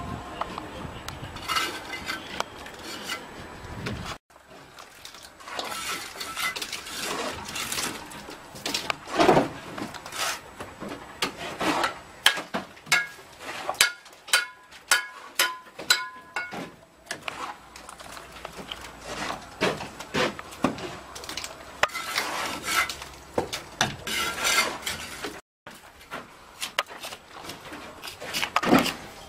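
Sharp clinks and knocks of a brick hammer striking clay bricks as they are trimmed and set, at irregular intervals, some strikes ringing briefly.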